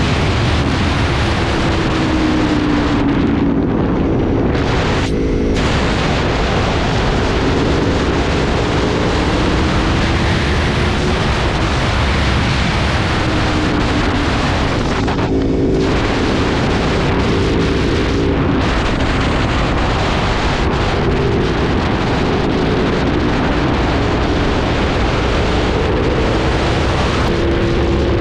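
Aprilia 1100 V4 motorcycle engine pulling hard on a back road, its pitch repeatedly climbing and dropping through the gears, under heavy wind rush on the microphone.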